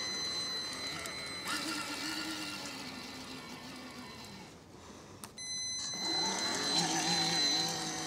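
Brushed electric motor and geartrain of a radio-controlled Vaterra K5 Blazer crawler whining as it drives through mud, over a steady high-pitched whine. The motor sound fades as the truck moves away, then cuts back in louder and wavering as it drives close.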